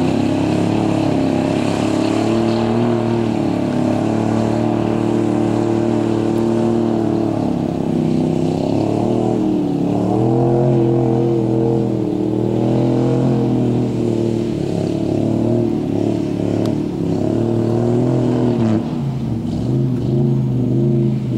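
Engine of a homemade monster-truck boat running under load, its revs wavering up and down. The revs climb about ten seconds in and drop near the end.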